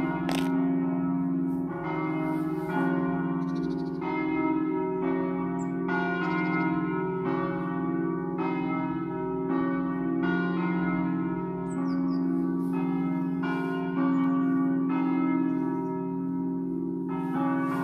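Church tower bells rung as a 'dopli', the Friulian festive chiming. Bells of different pitch are struck in a rhythmic sequence, about one strike a second, with their low hum ringing on underneath.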